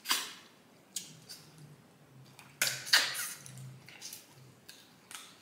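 Close-up eating sounds of snow crab legs: sharp wet smacks and sucking at the mouth as the meat is pulled from the shell. The smacks come a few times, the loudest near the start and around three seconds in.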